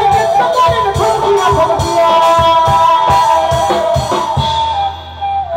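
Live band music: a bamboo flute melody over a steady drum beat. About four and a half seconds in the drums stop, leaving a held note.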